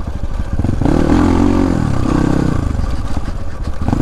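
Dirt bike engine at low revs for under a second, then revving up and easing off a couple of times as it is ridden.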